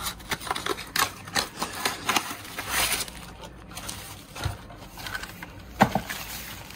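Packaging being opened by hand: a cardboard blister card being handled and pulled apart, then a plastic bag rustling and crinkling as it is unwrapped, with scattered small clicks and taps and a sharper tick near the end.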